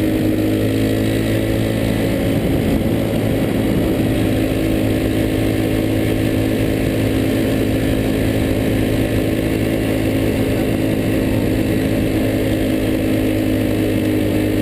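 Go-kart's small engine running at a steady speed, heard from on board the kart, holding an even pitch throughout.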